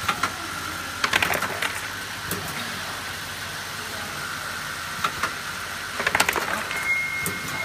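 An automated aluminum tube laser marking machine running, with a steady high-pitched hum. Several clusters of quick mechanical clicks and clacks come from its tube fixtures. A second, higher steady tone starts near the end.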